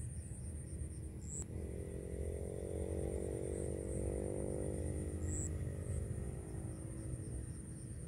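A motor engine hums at a distance, swelling from about a second and a half in and fading away near the end, over a steady low rumble.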